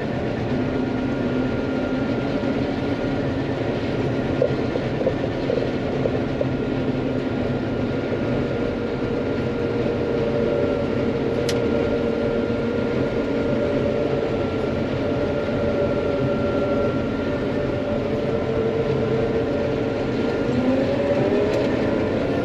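John Deere 9500 combine running steadily under load while harvesting soybeans: a constant drone of the diesel engine and threshing machinery, with one tone rising slightly in pitch near the end.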